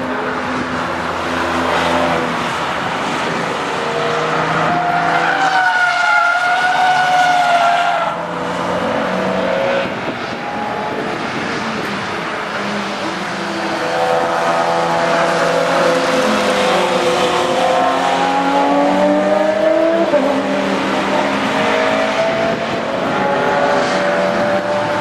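Racing car engines passing on the circuit, their pitch wavering up and down as they go by: one pass about five seconds in, then a longer stretch of engine sound from about the middle on.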